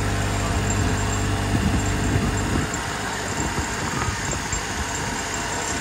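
Tractor engine running steadily as it pulls the ride wagon, with a constant rush of wind and wheel noise. About two and a half seconds in, the engine's low hum drops back and an uneven low rumble of wind buffeting the microphone takes over.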